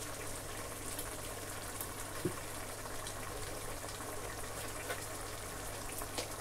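A pot of egusi soup simmering on the stove, a steady bubbling hiss over a low steady hum, with a couple of faint clicks.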